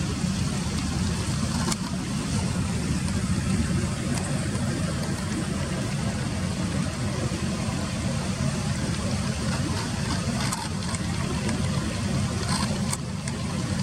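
Steady low rumble of engine or road noise, with a few brief faint high sounds: one about two seconds in and a couple near the end.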